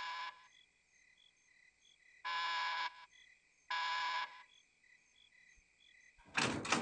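An electric door buzzer sounds in short flat buzzes: the end of one, then two more of about half a second each. Crickets chirp softly throughout. A sudden loud noisy burst comes near the end.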